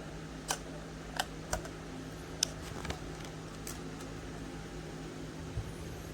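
A handful of sharp, light clicks, about six in the first four seconds, over a steady low hum.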